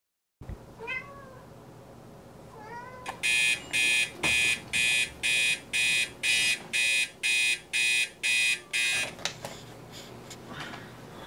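Digital bedside alarm clock beeping: a dozen high, evenly spaced beeps, about two a second, that stop about nine seconds in. Before the alarm starts there are two short rising-and-falling calls.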